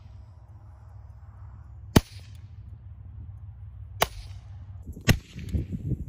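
Three suppressed shots from a .22 pistol fitted with a GSL Technologies Pillbox Plus suppressor, fired dry with subsonic ammunition. Each is a very quiet, sharp crack: the first about two seconds in, the second about two seconds later, the third a second after that.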